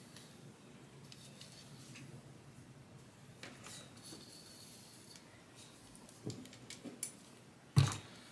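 Electric hot comb drawn through wig hair, a soft scratchy rubbing, followed by a few light knocks and one louder thump near the end.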